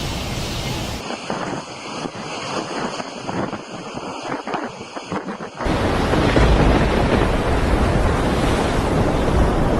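Storm wind rushing and buffeting the microphone. About a second in it changes to a thinner, crackling noise, and from about five and a half seconds on it becomes a loud, deep rush of wind on the microphone.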